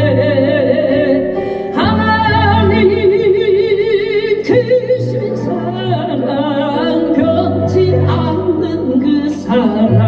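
A solo voice singing a Christian gospel hymn in long, held notes with a strong vibrato, over instrumental accompaniment with sustained bass notes.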